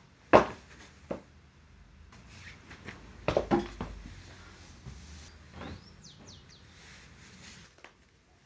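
A sharp knock, then a pair of shoes dropped onto a carpeted floor, landing as two quick soft thuds a few seconds in. Faint rustling and handling sounds follow.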